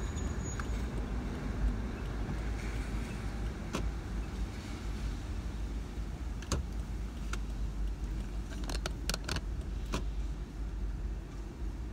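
Low, steady rumble of a car driving slowly in traffic, heard from inside the cabin. A few sharp clicks and taps come through, with a quick cluster of them about nine seconds in.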